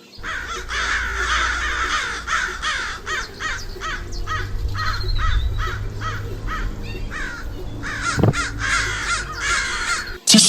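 A flock of birds calling over and over, many short calls overlapping, over a steady low rumble, with a thump about eight seconds in.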